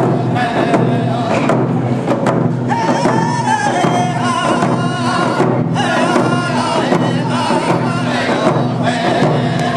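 Round dance song: a group of men singing together while beating hand drums in a steady beat.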